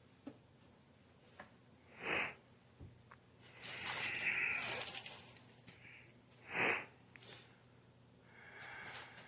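Dried Italian seasoning being shaken from a shaker jar onto a pizza: a brief shake, a longer run of shaking in the middle, another brief shake and a softer one near the end.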